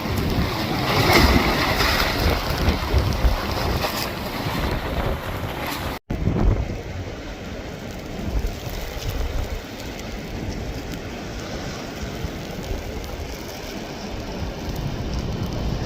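Storm wind buffeting the microphone over the noise of rough surf. The sound cuts out for an instant about six seconds in and carries on quieter.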